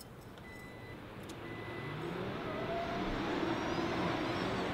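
Delivery truck accelerating hard, its engine growing steadily louder as it approaches, with the engine note rising about halfway through.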